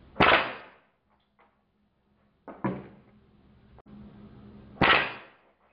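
Two shots from a .177 CO2 air rifle, the Umarex 850 Magnum, one just after the start and one near the end, each a sharp crack with a short decaying tail as the pellet strikes a plastic cordless phone handset. A quieter clack comes about halfway between them.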